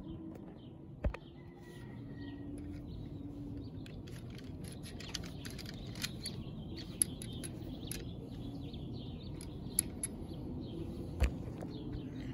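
Small birds chirping in the background, with scattered light clicks of handling and two dull thumps, one about a second in and one near the end. The impact driver is not running.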